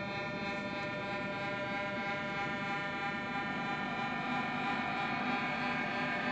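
A steady, sustained droning tone with many overtones over a low rumble, slowly getting louder.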